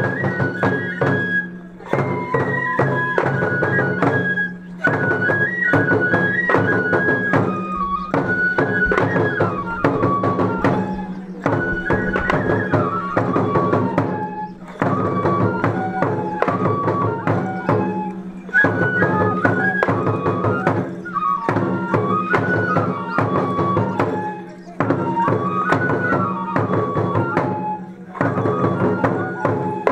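Japanese festival music: several bamboo transverse flutes play a stepping folk melody in phrases of a few seconds with short breaks between them, over steady, regular taiko drum beats.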